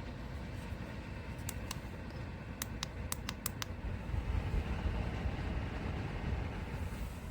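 Ceramic space heater's fan running as a low steady rumble. A quick run of about eight small sharp clicks comes a second and a half in.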